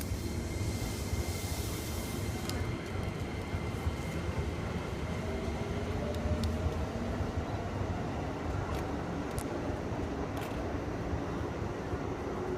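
Train at the station giving a steady low rumble, with a faint rising whine around the middle and a few sharp clicks.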